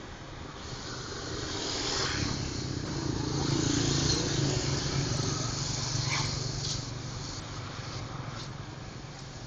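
A motor vehicle passing by on the street, its engine and tyre noise swelling to a peak about four seconds in and fading away, over a steady background rumble.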